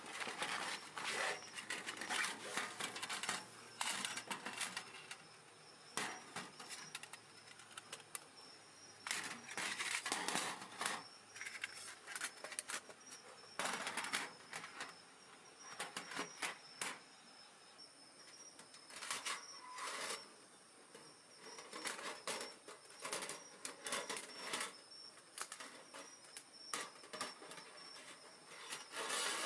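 Wood fire crackling, with irregular clusters of sharp pops and snaps, over the steady high trill of insects at night.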